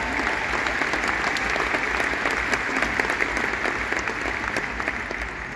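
Large crowd applauding, a dense patter of many hands clapping that dies away near the end.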